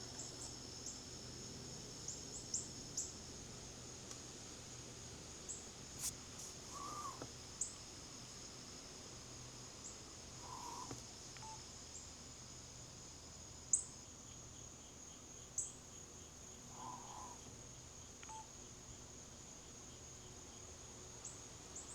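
Faint outdoor insect chorus of crickets, a steady high trilling in two pitches, the lower of which stops about two-thirds of the way through. Short, sharp high chip notes of small birds are scattered over it, with a few fainter, lower calls.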